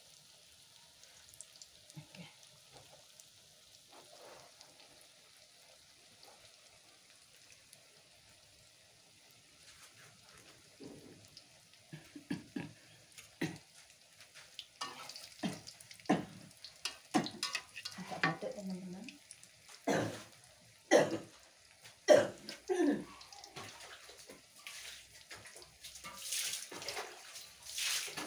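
Tofu-and-egg fritters frying in oil in a wok, a faint steady sizzle, joined from about ten seconds in by a run of sharp knocks and scrapes, the loudest sounds, as a metal spatula works the fritters against the wok.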